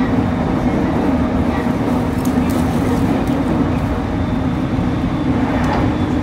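Running noise inside a JR East E231-series electric commuter train refitted with renewed traction equipment: a loud, steady rumble of the car on the rails with a constant hum underneath.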